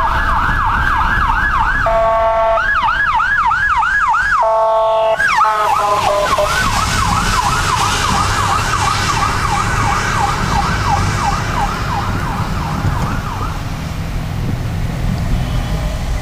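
Emergency vehicle siren in a rapid rising-and-falling yelp, about three sweeps a second, broken twice early on by short steady horn-like blasts, then a long run of yelp that fades out near the end. The low rumble of the moving car runs underneath.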